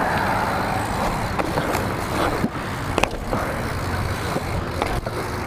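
BMX bike rolling over concrete pavement: a steady rushing noise with a few sharp clicks and knocks from the bike.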